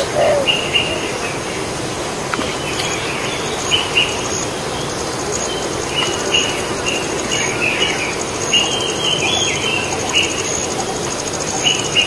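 Birds chirping in many short repeated calls over a steady hiss, with a dove's low coo at the very start. A thin high insect whine comes in about three seconds in and holds.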